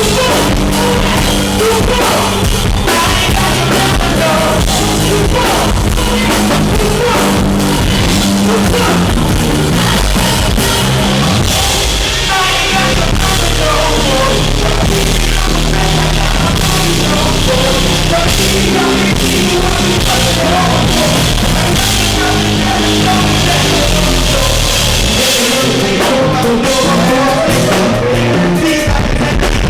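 Live band music played loud, with drum kit, bass and a singing voice, recorded on an overloaded microphone that distorts the sound. The bass drops out about 25 seconds in.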